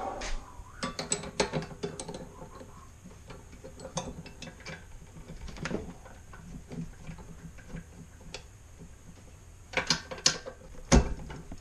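Scattered metal clicks and rattling of a chuck key being worked in a drill press chuck, with a burst of louder sharp clicks about ten seconds in as the key slips on the chuck's gear teeth. The key, which the owner doubts is the right one, does not grip properly.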